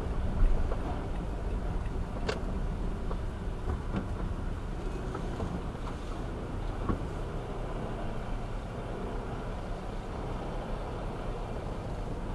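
Steady low rumble of city traffic heard from inside a slow-moving car, with a few faint clicks and a brief louder burst just after the start.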